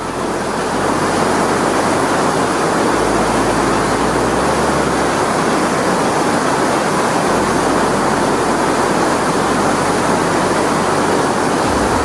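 Waterfall: a loud, steady rush of falling water.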